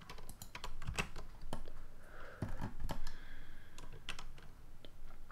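Computer keyboard keys being pressed in an irregular run of short clicks, as Blender keyboard shortcuts are worked.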